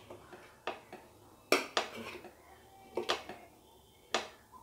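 Metal serving spoon knocking against a metal pot while cooked biryani rice is stirred and turned over: a handful of short, sharp, irregular clinks, the loudest about one and a half seconds in.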